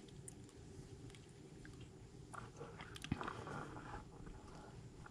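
Raccoons eating from bowls of dog food and oatmeal: faint chewing and crunching, with scattered small clicks, busiest in the middle and one sharp click about three seconds in.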